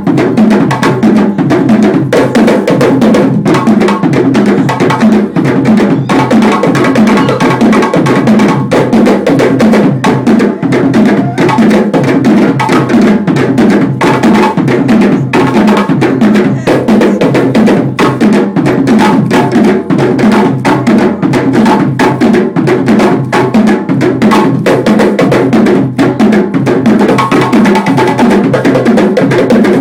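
An ensemble of hand drums playing a fast, dense, unbroken dance rhythm, loud throughout.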